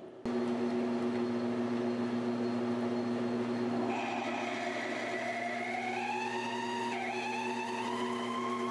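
PM1236T metal lathe running with a steady hum, coming in abruptly just after the start, as a cheap 5/8-inch twist drill bores into titanium bar. From about four seconds in the drill adds a high squeal that slowly rises in pitch, drops briefly near the end, and climbs again.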